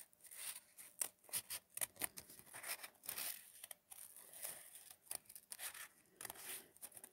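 Scissors snipping through an accordion-folded stack of paper in short, irregular cuts, faint and close.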